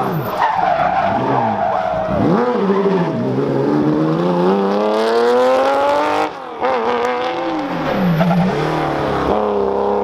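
Porsche 911 SC rally car's air-cooled flat-six engine revving hard, its pitch climbing under acceleration and falling off the throttle several times, with a long climb through the middle and a brief sharp dip about six seconds in.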